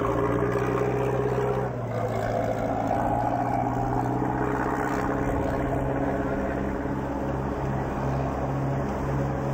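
Engine of a small fishing boat running steadily as it motors past through the harbour, a low continuous drone.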